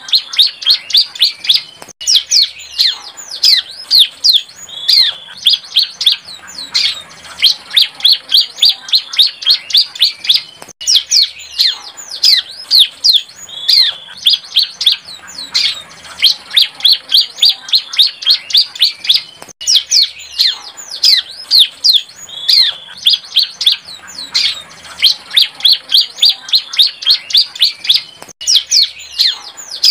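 A young bar-winged prinia (ciblek) singing a rapid run of sharp, high chirps, several a second. The phrase repeats in a cycle of about nine seconds.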